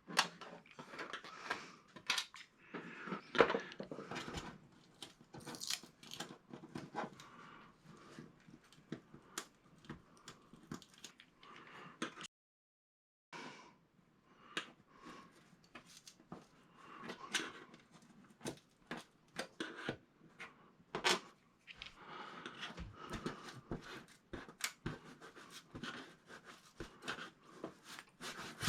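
Irregular clicks, taps and light rattles of hands and tools on the plastic and metal parts of an opened flat-screen TV during backlight-strip work. The sound cuts out completely for about a second near the middle.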